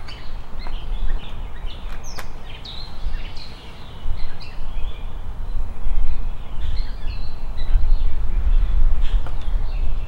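Songbirds chirping and calling in many short, quick notes that slide up and down, over a low rumble that grows louder about halfway through, with a few sharp clicks.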